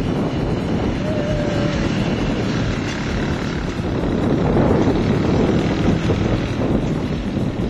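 Four-stroke 150cc engine of an XA150 gas ATV running steadily as the quad is ridden.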